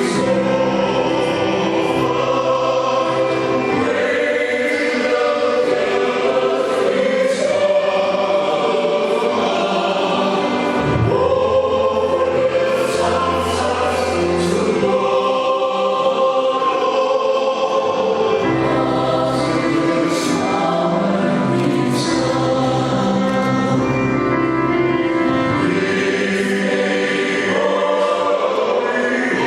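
A high-school choir singing a song in several voices at once, steadily and without a break.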